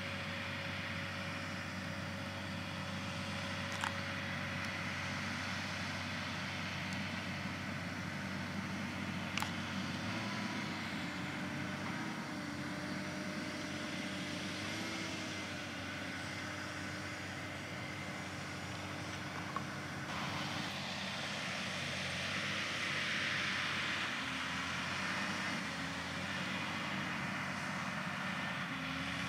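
John Deere 6150M tractor's diesel engine running steadily under load as it pulls a three-point sprayer, with its hum shifting slightly in pitch a couple of times and three brief clicks.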